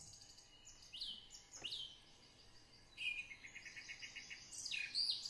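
Birds singing: two quick chirps about a second in, a rapid trill of repeated notes around the three-second mark, then more chirps near the end.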